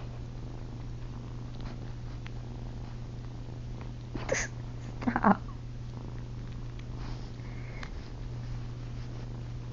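Kitten purring steadily while suckling on a person's chin as if nursing, with two brief louder noises about four and five seconds in.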